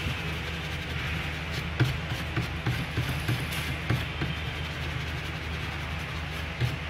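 Steady low electrical hum of workbench equipment, with scattered light clicks and taps of small hand tools on a laptop motherboard.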